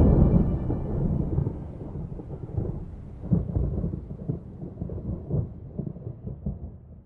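Deep, thunder-like rumble with scattered crackles, slowly dying away.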